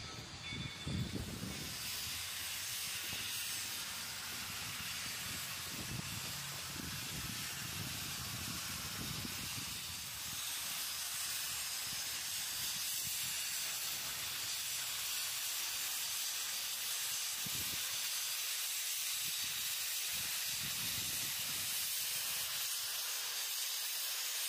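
Mogiana No. 761, a 1945 American-built steam locomotive, standing and venting steam with a steady hiss. A low rumble of the train drawing in fades during the first two seconds.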